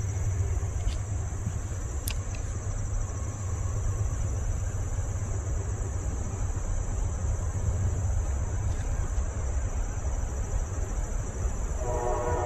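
Steady high-pitched insect chorus over a low rumble, with a couple of faint clicks. Near the end a distant train horn starts to sound.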